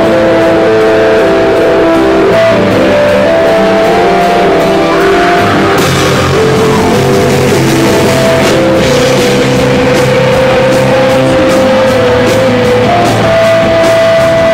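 Indie rock band playing live, loud and steady: electric guitars with long held notes changing pitch every second or two.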